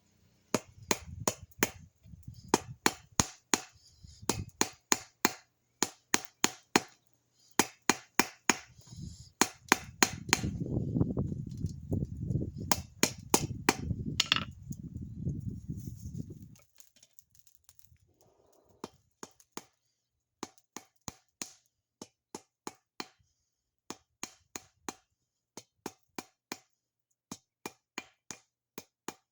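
Quick runs of sharp knocks, two or three a second, over a low rumble that stops about halfway through; after that the knocks come sparser and quieter.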